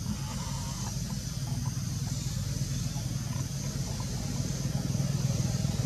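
Steady low drone of an idling engine, with a faint high-pitched hum above it and a few faint short chirps.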